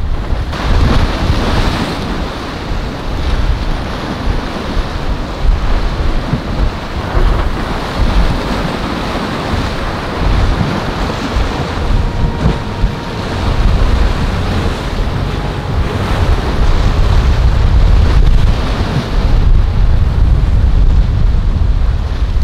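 Wind buffeting the microphone in gusts over the wash of breaking waves, with a boat engine faintly audible as a thin steady tone for a few seconds in the middle.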